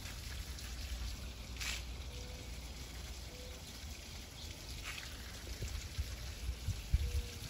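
Wind buffeting the microphone in a low, uneven rumble under a steady hiss, with two brief hissing gusts and a few faint short whistles.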